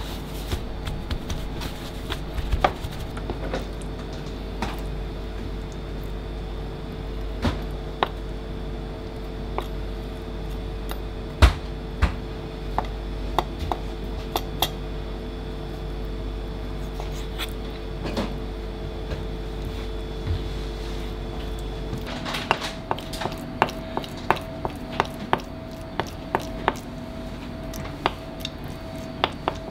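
Kitchen knife tapping and scraping on a cutting board as chicken livers are trimmed: irregular sharp taps, coming in a quicker run about two-thirds of the way through, over a steady background hum.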